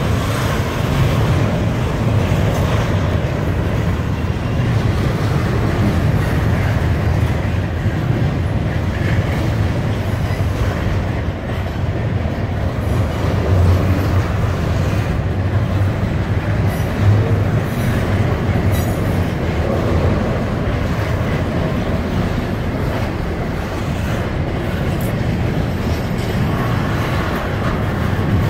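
Double-stack container well cars of a Florida East Coast Railway intermodal freight train rolling past: a steady low rumble of steel wheels on the rails, with an occasional clack over the rail joints.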